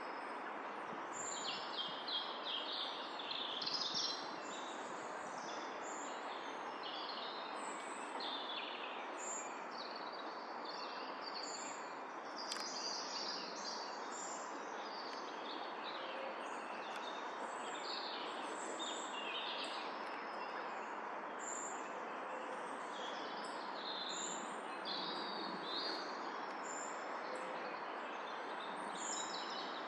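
Several songbirds singing and calling, many short high phrases that overlap and come throughout, over a steady rushing background noise.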